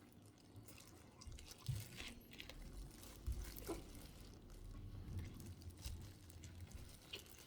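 Close-miked chewing of a cilantro burger: a run of small mouth clicks and crunches over low thumps of the jaw.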